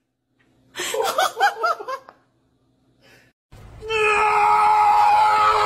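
A person laughing in short bursts for about a second. A few seconds later a louder, steady, held sound with several fixed pitches comes in and continues.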